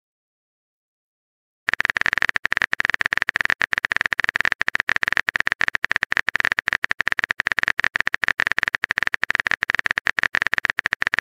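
Texting-app keyboard typing sound effect: a fast, steady run of small key clicks that starts about two seconds in.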